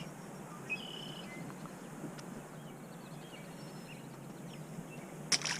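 Quiet lakeside ambience: a steady low hiss with a few faint bird chirps, one short whistled note about a second in, and a brief burst of noise near the end.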